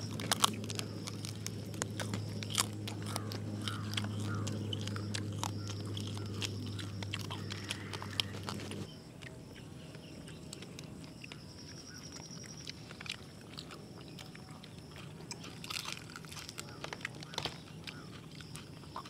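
Biting and chewing crunchy fried quail, the small bones crunched through, heard as many small sharp crunches and crackles at irregular intervals. A steady low hum underneath cuts off about nine seconds in.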